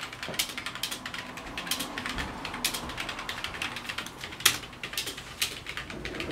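Typing on a computer keyboard: an uneven run of key clicks, several a second.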